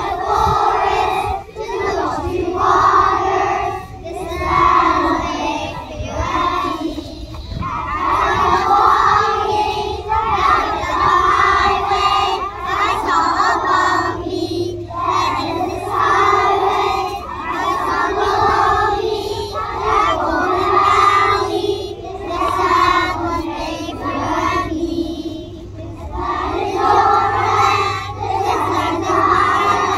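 A large group of young children singing together in unison, loud, phrase after phrase with short breaks between them.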